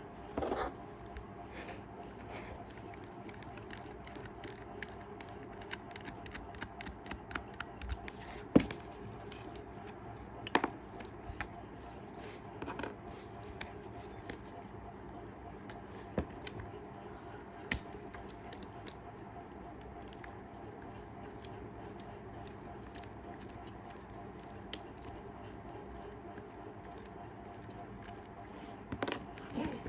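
Irregular light clicks and taps of small metal tools and clock parts being handled, over a steady low hum, with one sharper click about eight and a half seconds in.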